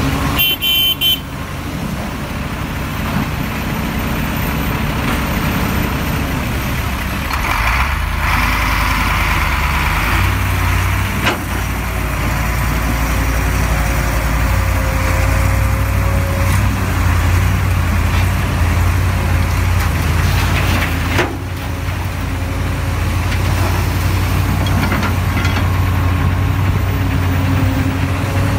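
Komatsu PC350 hydraulic excavator's diesel engine running under working load, its deep drone growing heavier about a quarter of the way in as it digs and swings. Two short, sharp knocks come through, one about a third of the way in and one about three quarters in.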